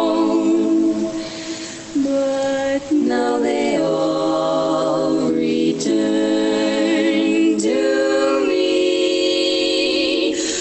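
Women's barbershop quartet singing a slow ballad a cappella in close four-part harmony, holding ringing chords that shift every second or two, played back from a recording. It drops quieter briefly about a second in before the chords swell again.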